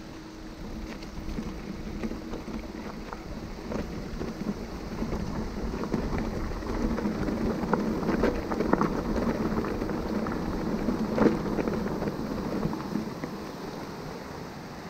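Mountain bike rolling over a rough trail: tyres crackling over stones and gravel with a continual rattle of the bike. It gets louder toward the middle and has one sharp knock about eleven seconds in.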